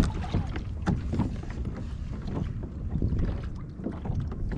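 Steady wind rumbling on the microphone on an open kayak, with a few light knocks.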